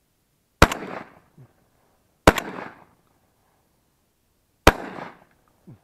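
Browning Maxus semi-automatic shotgun fired three times at a passing thrush, the shots about two seconds apart. Each loud report dies away in a short echo.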